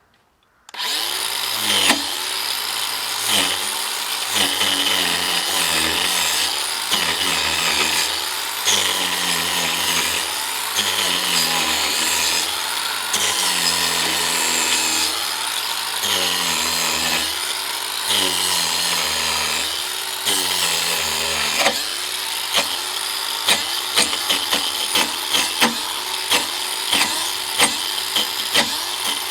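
DeWalt 18V XR cordless 4-inch angle grinder with a wood carving disc starting up about a second in and cutting into a log to strip the bark. Its motor pitch dips and recovers each time the disc bites, every second or two at first, then in quick short bites near the end.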